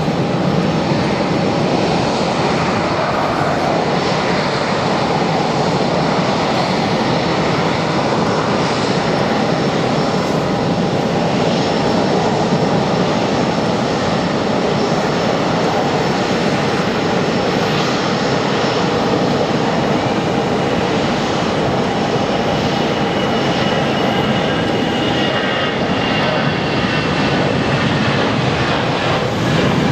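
Airbus A320-214 jet engines at takeoff power, a loud steady rush with a steady tone running through it. A high whine falls slightly in pitch over the last few seconds.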